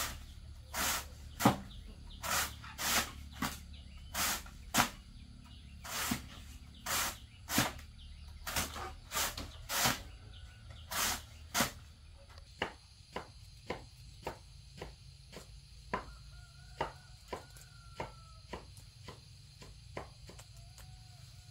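Repeated hand-work strokes, about one to two a second, each a short swish or scrape. About halfway through they become lighter, sharper taps.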